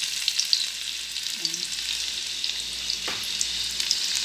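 Minced garlic sautéing in hot oil in a frying pan: a steady sizzle with small crackles and pops, and one sharper click about three seconds in.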